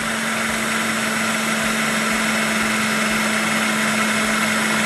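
Electric food processor running steadily, its motor whirring with a constant hum as it blends a liquid chocolate-sauce mixture while oil is drizzled in.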